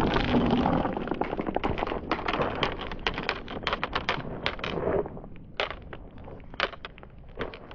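Many glass marbles clicking against one another and a wooden track as they roll down and drop onto a heap of marbles. A dense rattle of clicks thins out to scattered single clicks over the last few seconds.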